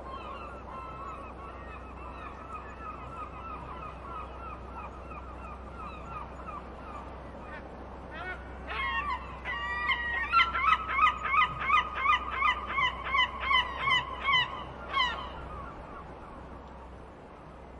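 Gulls calling. A fainter fast run of repeated calls is followed, about eight to nine seconds in, by a few rising calls. Then comes a loud run of about a dozen strong calls, about two a second, which stops about fifteen seconds in. A steady low rumble lies underneath.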